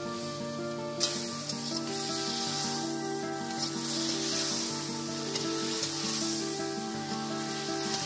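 Food sizzling as it fries in hot fat, starting suddenly about a second in, over background music with a melody.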